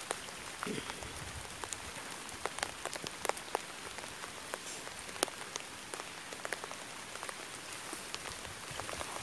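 Light rain pattering on water and grass: a steady hiss dotted with many separate drop ticks.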